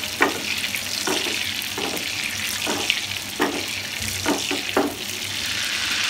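Egg-coated minced beef kebab patties frying in hot oil in a pan: a steady sizzle with scattered pops.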